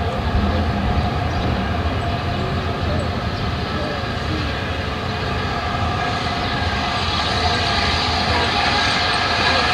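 Hunslet Austerity saddle-tank steam locomotive working towards the listener, unseen round a curve: a steady rumble and hiss that grows louder in the second half as it approaches.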